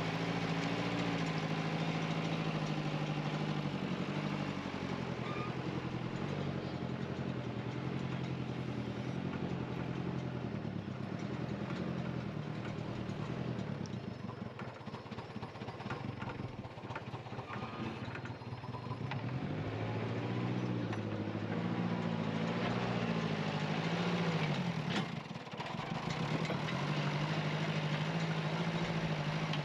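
Caterpillar excavator's diesel engine running as it levels soil, its note rising and falling with the work. It drops quieter for a while in the middle and briefly near the end.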